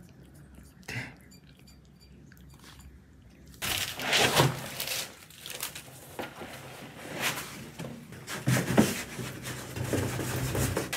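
Granular cat litter shifted and scraped inside a plastic litter box as it is emptied for a full change, a gritty rustling with louder scrapes and knocks against the plastic tub. For the first few seconds it is quiet apart from one faint click.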